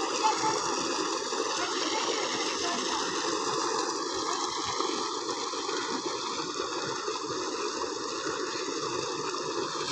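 Tubewell water gushing from the outlet pipe into a concrete tank, a steady rushing noise.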